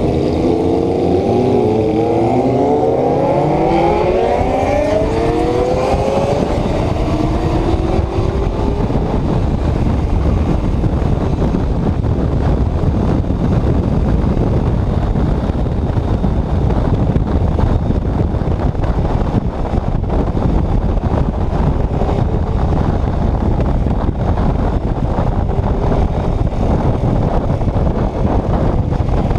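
Yamaha Ténéré 250's single-cylinder engine accelerating hard, its pitch climbing over the first several seconds, then wind buffeting the microphone at speed largely covers the engine.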